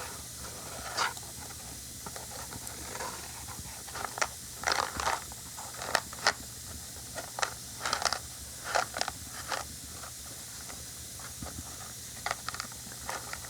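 Wooden matchsticks and a cardboard matchbox being handled: irregular short scrapes and rustles of the sticks rubbing together and against the box, clustered in the middle of the stretch.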